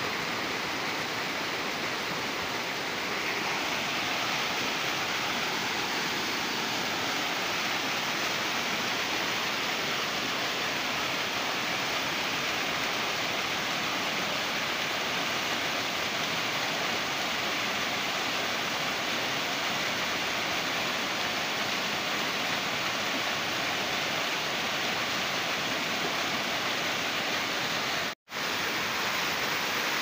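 Small waterfall cascading over boulders: a steady rush of falling water that grows a little louder about three seconds in. The sound cuts out for an instant near the end.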